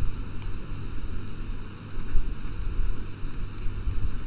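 Low, steady rumbling background noise with a constant low hum and a faint hiss; no speech.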